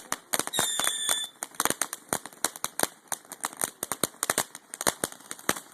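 Consumer fireworks crackling, with dozens of rapid, irregular sharp pops. A brief high whistle sounds about half a second in.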